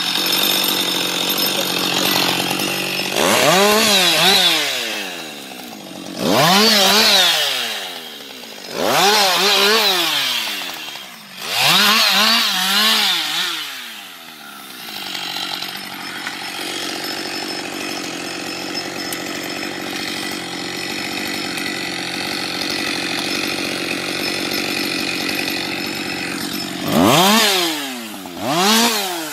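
Husqvarna 560XP two-stroke chainsaw revving to full throttle in short bursts, each rising and falling in pitch. Four bursts come in the first half, then it idles steadily for about twelve seconds, then two more bursts come near the end.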